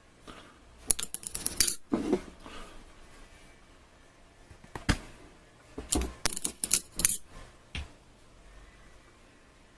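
Several short bursts of sharp clicking and light clatter from small hard objects being handled, with quiet gaps between them.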